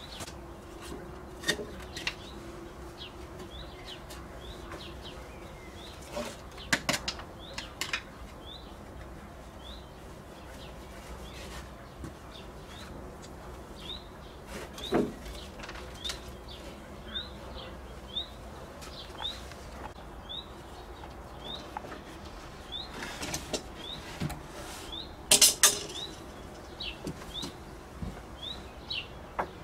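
A small bird repeats a short rising chirp about once a second. Over it come scattered knocks and clatters of wood slabs being handled, the loudest a quick cluster of knocks near the end.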